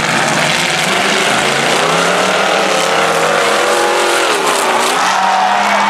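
Several demolition-derby cars' engines revving hard at once, their pitch rising and falling as the cars drive and ram one another.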